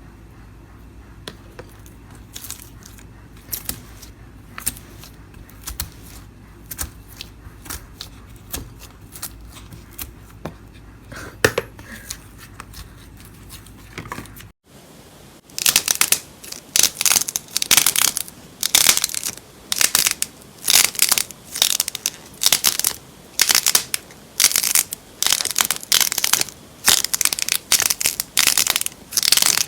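Slime being worked by hand. First come scattered soft clicks and pops over a low hum. Then, after a cut about halfway, loud crackling crunches repeat about twice a second.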